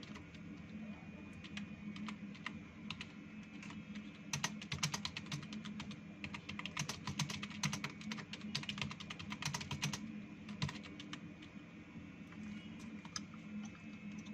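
Fast typing on a computer keyboard during a timed typing-speed test, a rapid irregular run of keystrokes that thins out in the last few seconds.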